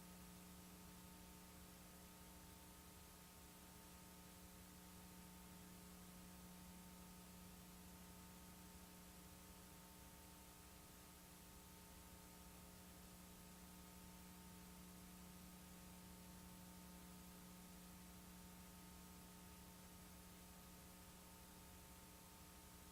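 Near silence: a steady low electrical hum over faint hiss, with no change throughout.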